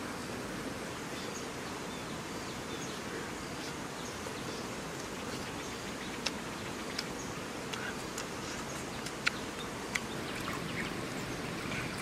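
Steady outdoor background noise, an even hiss with a few faint bird chirps, and a handful of sharp clicks in the second half.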